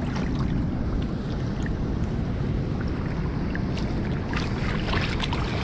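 Steady low rumble of water rushing out of the dam spillway, mixed with wind buffeting the microphone, with a few light clicks near the end.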